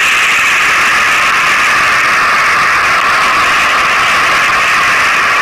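A steady, loud hiss-like rushing noise without pitch or rhythm, strongest in the upper-middle range.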